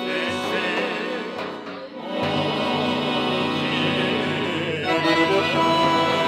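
Bulgarian folk musicians performing: men's voices singing together over an accordion, with long held, wavering notes.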